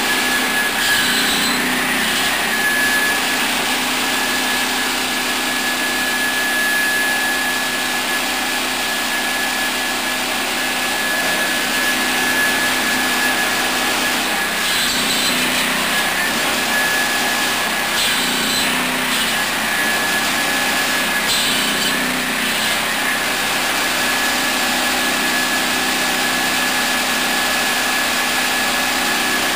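A 13 hp gasoline engine running steadily and driving a 700 mm swing-table circular saw, with a steady high whine. The blade cuts through firewood in short bursts: once about a second in and three more times in the second half.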